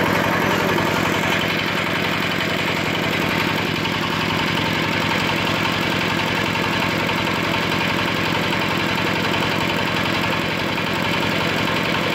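Engine of a concrete hoist (lif cor) running steadily, with an even, rapid firing beat.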